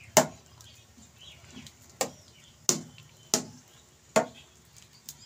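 A dal masher knocking against the inside of a steel cooking pot while thick dal-and-rice vegetable soup is mashed and stirred: five sharp knocks, the first alone and the other four coming closer together, about one every 0.7 s.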